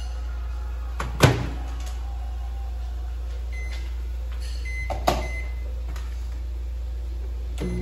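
Haceb microwave oven door shut with a sharp knock about a second in. Short keypad beeps follow as the two-minute time is entered, then a second knock. Near the end the oven starts running with a steady hum.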